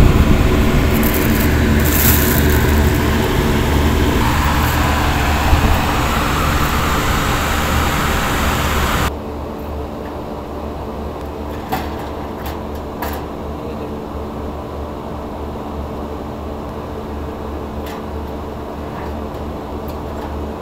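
Steady drone of running rooftop HVAC machinery with a low hum. It is loud at first and drops sharply about nine seconds in to a quieter hum, with a few light knocks after that.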